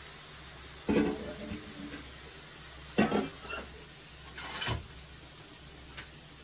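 Stirring in a cooking pot: a utensil knocks against the pot twice, about one and three seconds in, each knock ringing briefly, followed by a short scraping sound.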